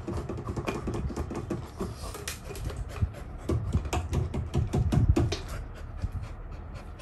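Dog chewing and gnawing a rubber ball toy: a run of irregular clicks and knocks, thickest between about three and five seconds in, then thinning out as the chewing stops.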